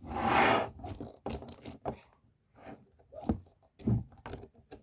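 Handling of a plastic dinosaur action figure. A loud rush of rustling noise in the first second is followed by scattered small clicks, knocks and scrapes as its limbs are moved.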